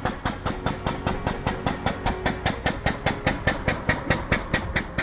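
Single-cylinder four-stroke engine of a Benz Patent-Motorwagen replica running as the carriage drives past, with a fast, even beat of about six or seven exhaust pulses a second.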